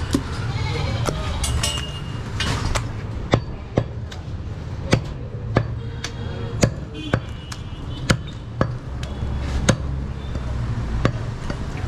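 A heavy butcher's cleaver chopping mutton on a wooden stump chopping block, in a steady series of sharp chops about twice a second.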